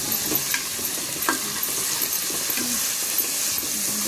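Sliced onions and green chillies sizzling in hot oil in a metal pressure cooker, stirred with a wooden spoon. The steady sizzle is broken by a few short scrapes and knocks of the spoon against the pot.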